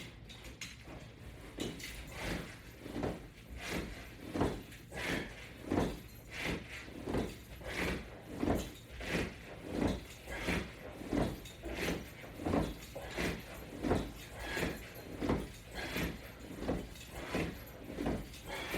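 Resistance-band exercise repetitions on a latch bar attachment system: a rhythmic, even series of short swishing strokes, about three every two seconds.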